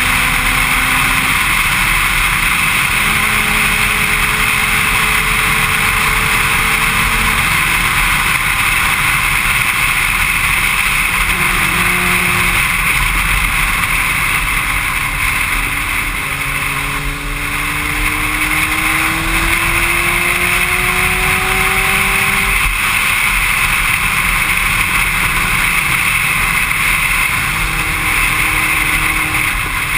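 Wind rushing hard over the camera microphone on a Yamaha R1 at highway speed, a steady loud rush, with the bike's inline-four engine faintly beneath it, its note rising slowly in pitch at times.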